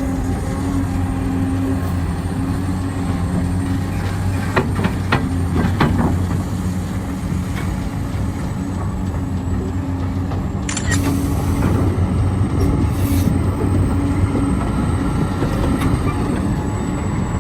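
Heavy construction machinery engine running steadily, with a few knocks around five seconds in and a short hiss about eleven seconds in.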